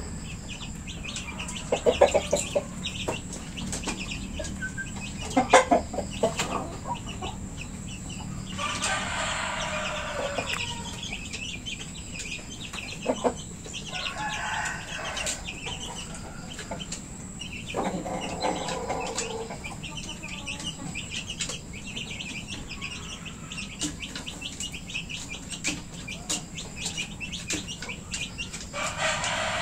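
Chickens clucking and calling, with several drawn-out calls of a second or more and a couple of short, sharp outbursts. Small birds chirp faintly in the background.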